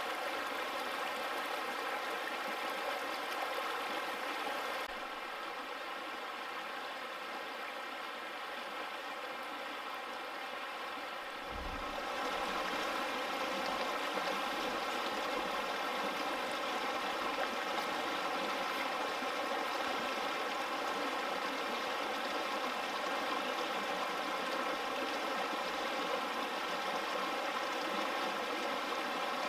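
Shallow mountain stream running over rocks, a steady rush of water. It drops slightly about five seconds in and comes back louder near twelve seconds with a brief low thump.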